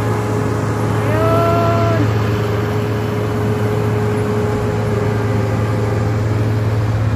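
Diesel engine of a wheel loader with a snowblower attachment running steadily as it clears deep snow, a constant low drone with a steady whine above it. About a second in, a drawn-out tone rises, holds for about a second and falls away.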